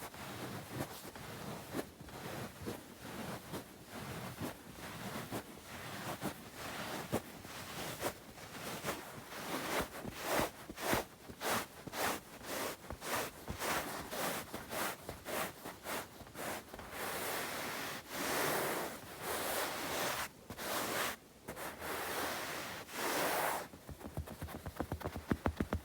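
Bare palms and fingers rubbing and swishing against each other close to the microphone, in quick short strokes at first and then in longer, sustained rubs. Near the end this turns to rapid light finger tapping.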